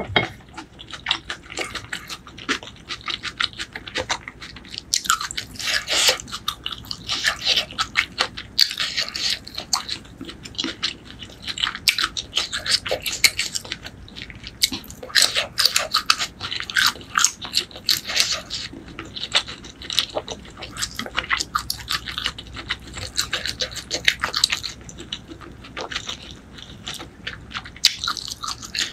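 Close-miked chewing of noodle soup and meatballs: a steady run of wet mouth clicks, smacks and bites, uneven in rhythm.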